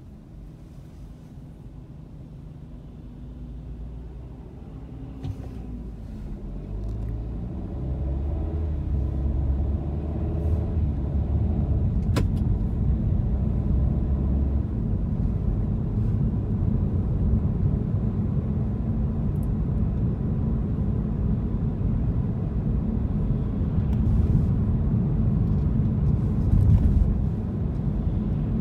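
A car pulls away from a standstill, its engine note rising over a few seconds. It then settles into a steady low engine and road rumble as it drives on, heard from inside the car.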